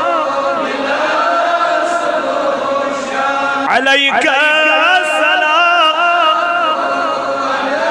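A man chanting a Darood Shareef, the devotional salutation on the Prophet, in long held notes with a wavering, ornamented pitch. About halfway through, the line breaks briefly and a new phrase starts with a quick swoop in pitch.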